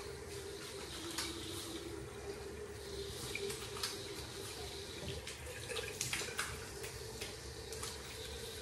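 Water tap running steadily into a sink, with short scattered scraping strokes of a kamisori straight razor across a lathered scalp.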